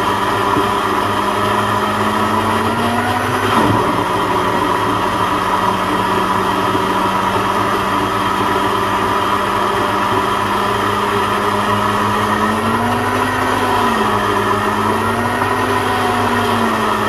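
Electric blender motor running steadily under load, grinding soaked mash and moong dal with a little water into a thick batter. Its pitch dips briefly about three and a half seconds in and wavers a few times near the end.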